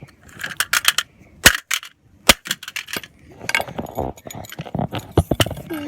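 Plastic toy car being struck with a pickaxe: several sharp separate blows, then a faster clatter of hits and plastic pieces from a little past halfway.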